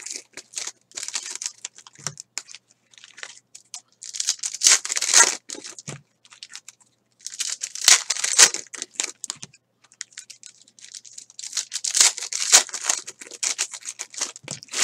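Foil trading card packs being torn open and their wrappers crinkled in the hands, in several bursts of crackling a few seconds apart.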